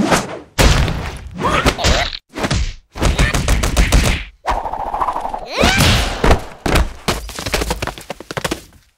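Cartoon slapstick sound effects of a frog's tongue lashing and its body crashing about: a rapid, loud run of thuds and whacks with short gaps between them, and a few sliding pitched sweeps mixed in.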